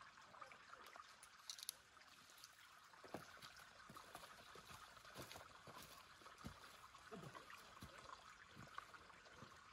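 Near silence: faint, irregular footsteps on a rocky, gravelly trail over a soft steady hiss.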